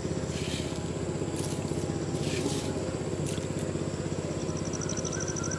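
A small engine running steadily in the background with a fast, even throb. Over it, soft wet squelching and splashing about once a second as a hand kneads tomatoes and rock salt into tamarind water in a clay pot.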